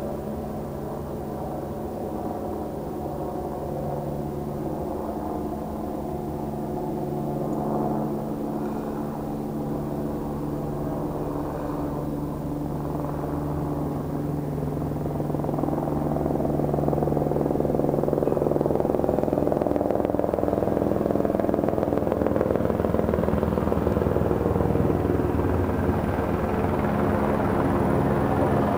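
Helicopters flying overhead: a steady engine and rotor drone with several constant pitched tones, growing louder over the first fifteen seconds or so and then holding steady.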